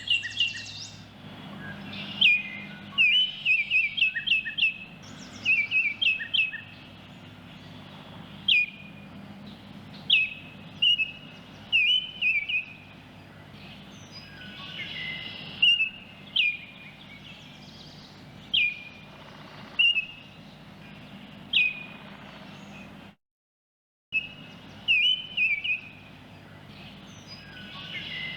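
Baltimore oriole singing: short, clear whistled notes and slurred phrases in quick groups, repeated every second or two over a steady low background hum. The recording cuts out for about a second near the end, then the song resumes.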